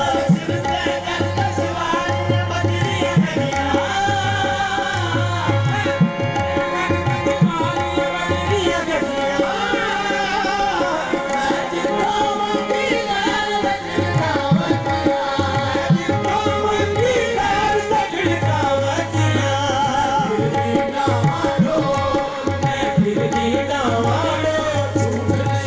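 Live qawwali: tabla drumming with a deep bass stroke, under held harmonium tones and a lead voice singing with melismatic runs.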